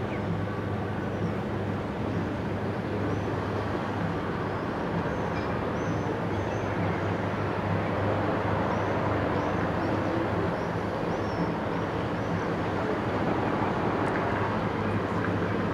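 Steady harbour ambience: a continuous low engine drone under an even rushing noise, with faint high chirps of small birds now and then.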